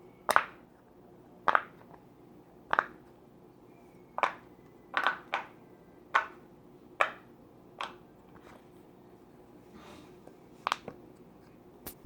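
Silicone Pop It fidget toy's bubbles being pressed: about ten sharp pops, roughly one a second, with a longer pause near the end.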